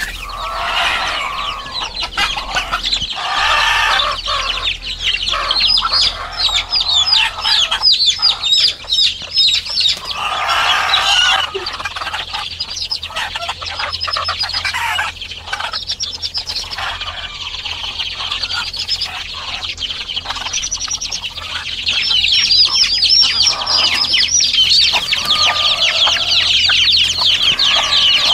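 Young chickens peeping continuously in rapid, high, falling chirps, with lower clucking calls breaking in every so often.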